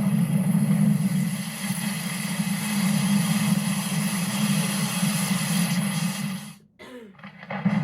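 Heavy hail pounding a roof and crashing through it in a steady dense roar, over a steady low hum; it cuts off abruptly about six and a half seconds in.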